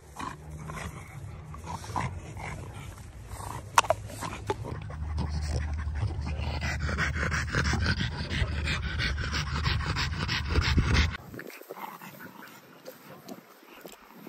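Dogs panting during play, close to the microphone. The panting grows louder and faster about halfway through, as the Great Dane's open mouth comes right up to the microphone, then cuts off suddenly about three seconds before the end, leaving quieter sounds.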